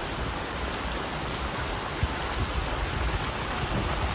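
Steady rush of floodwater flowing across a street.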